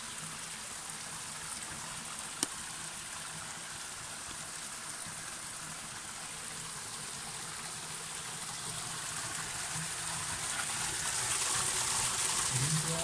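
Small spring trickling over stones and moss in a shallow rivulet, a steady hiss of running water that grows louder near the end. One sharp click about two and a half seconds in.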